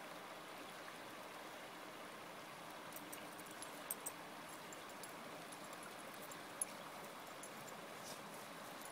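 Faint, steady rush of a flowing river, with a few light clicks about four seconds in and again near seven seconds.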